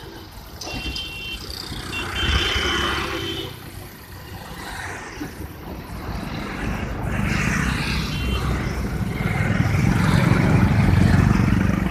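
Road traffic passing on a flyover: vehicle engines and tyres, with a heavier low engine rumble building up in the second half. Short steady high tones come twice in the first few seconds.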